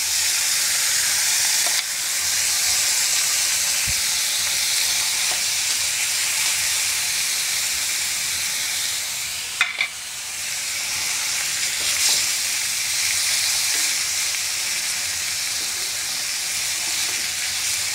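Onion and tomato frying in hot mustard oil in a pan, sizzling steadily, stirred now and then with a spoon.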